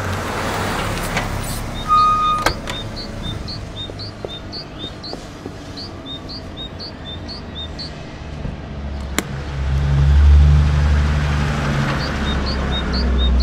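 Road-traffic ambience: a low vehicle rumble that swells about nine seconds in, with small birds chirping in short, repeated calls and a couple of sharp clicks.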